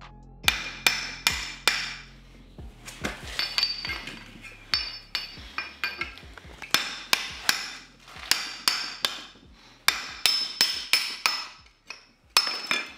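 Hammer striking a steel part, blow after blow in quick groups of two or three, each with a short metallic ring: a drive flange on a BMW E46 differential being knocked into place.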